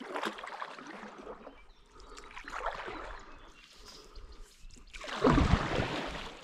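Paddle strokes in river water from a stand-up paddleboard: irregular splashing and dripping, with a louder surge about five seconds in.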